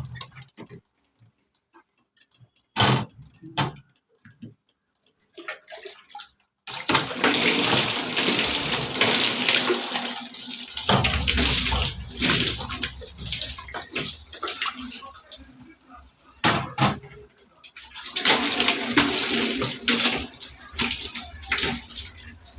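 Water running and splashing during washing, starting about a third of the way in after a few scattered knocks and going on without a break.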